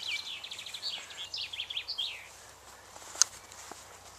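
A small songbird singing a fast run of short high chirps that stops about two seconds in, over the faint low hum of a distant lawnmower. A single sharp click comes about three seconds in.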